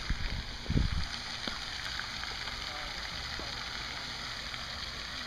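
Steady outdoor background hiss. A few low thumps of the handheld phone being handled come within the first second.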